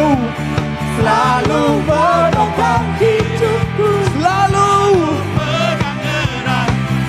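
Worship song sung live with a band: a lead voice singing a gliding melody over a steady drum beat and sustained bass and keyboard-like chords.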